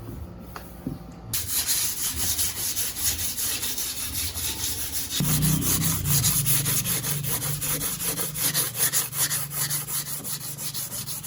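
Sanding in quick, rhythmic back-and-forth strokes, starting about a second in. A low steady hum joins about halfway through.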